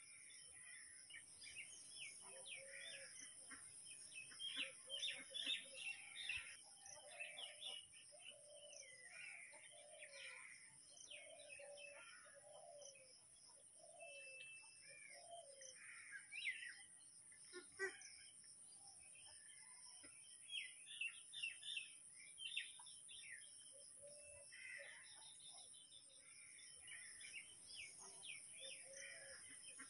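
Faint birdsong: many short chirps and calls from several birds overlapping, with a steady high hiss underneath.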